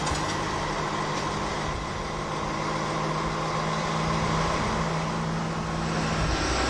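FS D 445 diesel locomotive engine idling close by, a steady hum with a constant tone. About six seconds in the sound changes abruptly.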